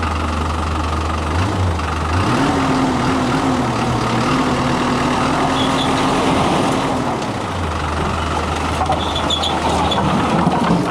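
A large engine idling, then revving up about two seconds in, holding the higher speed for about five seconds and dropping back to idle.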